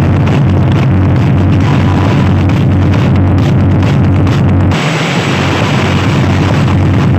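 Very loud, bass-heavy DJ music played through a miniature parade sound system with 12- and 15-inch speakers. About five seconds in, the deepest bass drops away and the upper range grows brighter.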